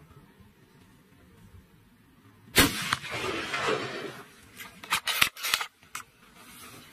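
A single gunshot from a hunting rifle about two and a half seconds in, followed by a second or so of noisy aftersound, then several short sharp cracks or knocks a couple of seconds later.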